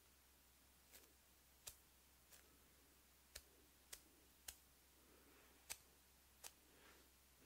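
Near silence: quiet room tone broken by about eight faint, sharp clicks at irregular intervals.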